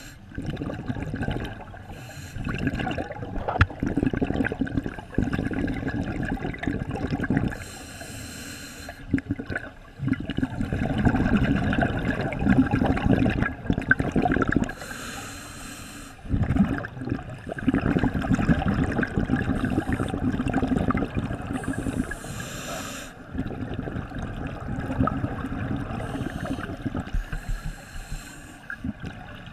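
Scuba regulator breathing heard underwater: a short hiss of each inhalation through the demand valve, then a long gurgling stream of exhaled bubbles, repeating about every seven seconds.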